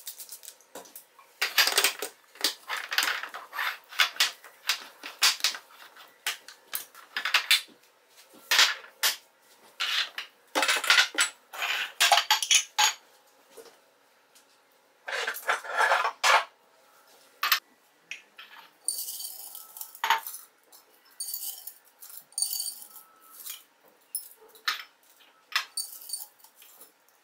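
Glass jars and their lids clinking and knocking as they are lifted and set down on a granite countertop. Several stretches of a cloth rubbing over the stone surface come in between.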